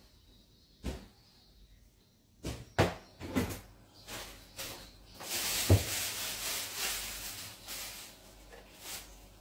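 Household objects being handled and tidied by hand: several sharp knocks and clacks as things are picked up and set down, then a few seconds of rustling with one hard thump in the middle.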